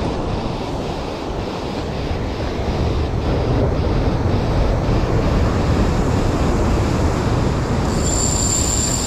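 Wind rumbling on the microphone over surf breaking on the rocks. A high, thin whine joins in near the end.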